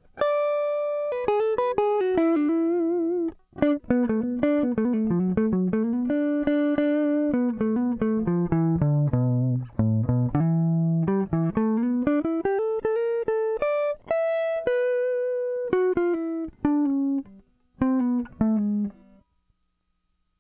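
Electric guitar played through a breadboard audio compressor circuit: a run of single plucked notes, some with vibrato and some bent up and down in pitch, each holding a fairly even level. The playing stops about a second before the end.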